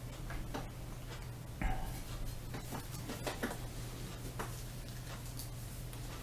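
Scattered light clicks and taps from handling disassembled rifle parts, with a slightly louder knock about a second and a half in, over a steady low hum.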